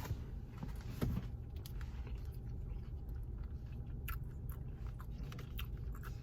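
Close-up chewing and mouth sounds of someone eating, with a few short wet clicks and smacks over a steady low hum.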